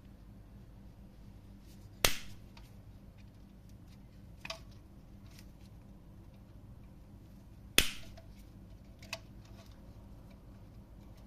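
Sharp clicks from small parts and tools being handled during a wall socket repair. There are two loud clicks about six seconds apart, each with a short rattle after it, and two fainter clicks between them, over a faint steady hum.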